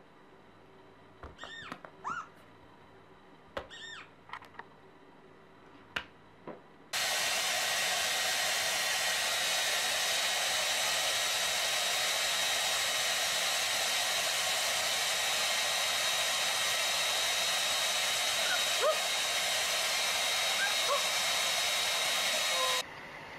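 A hand-held electric hair dryer runs with a steady rushing blow. It starts abruptly about seven seconds in and cuts off near the end. Before it comes on, there are a few short high calls and a couple of clicks.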